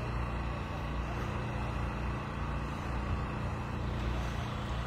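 A large engine idling steadily, a low even hum that does not change.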